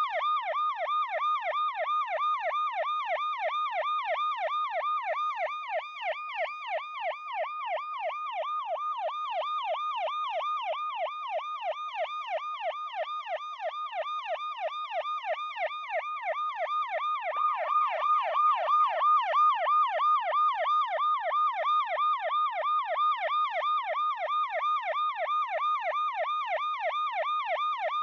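Police car siren in a fast yelp, its pitch sweeping up and down about three times a second without a break.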